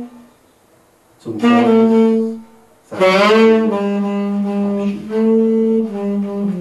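Tenor saxophone played solo, slow and sustained: a held note dies away at the start, then after a brief pause a short phrase, and from about three seconds in a longer phrase of long held notes.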